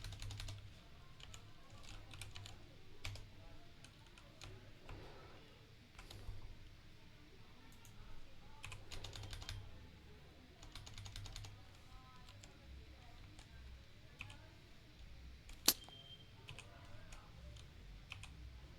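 Typing on a Kreo computer keyboard in short bursts of key clicks with pauses between. One single sharper, louder click comes about three-quarters of the way through.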